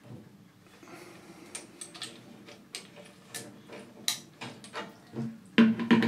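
Scattered sharp metal clicks and knocks of a spanner working a brass compression fitting as a flexible braided hose is unscrewed and pulled off copper heating pipework, with a louder burst of clattering near the end.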